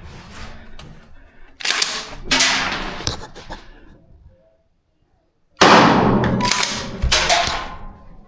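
Rifle shots, five in all: two close together about a second and a half in, then three more about half a second apart near the end. Each shot is sudden and tails off in echo.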